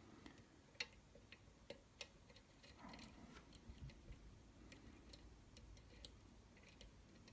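Faint, irregular small clicks of a lock pick working the pins of a Falcon pin-tumbler lock under very light tension, the pins clicking as they set.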